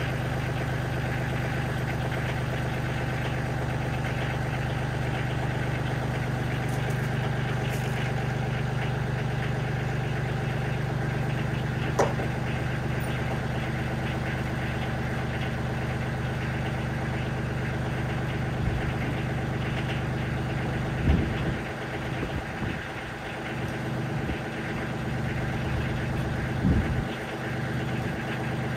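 Kioti CK30 compact tractor's three-cylinder diesel engine idling steadily. A sharp click about twelve seconds in, and a couple of knocks in the last third.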